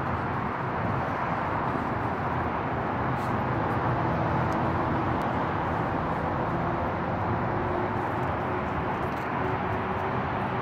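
Steady outdoor background noise, a low rumble and hiss like distant traffic, with no clear separate events.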